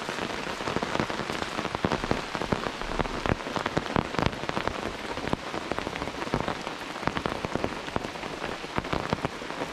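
Steady rain falling on a tarp overhead, a dense patter of many separate drops hitting it.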